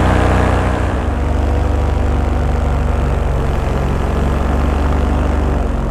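Paramotor engine and propeller running with a steady drone, with wind noise on the microphone.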